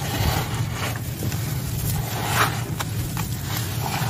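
Hands squeezing and crumbling a damp, gritty sand mix: irregular crunches and gritty rustles, the loudest about two and a half seconds in, over a steady low rumble.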